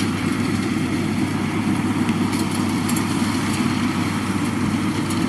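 Yanmar 82V rice combine harvester running steadily while it cuts rice, its engine and cutting and threshing machinery making a continuous deep drone.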